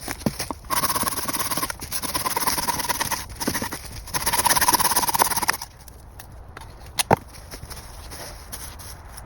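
A hand tool working birch wood in three long scraping strokes, then a single sharp knock about seven seconds in.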